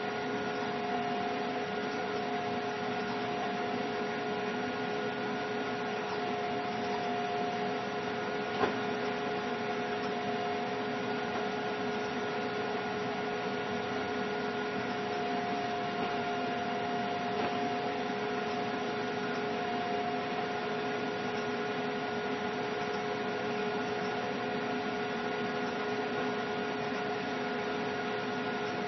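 Steady electrical hum with a few fixed pitches over a faint hiss, and a single click about eight and a half seconds in.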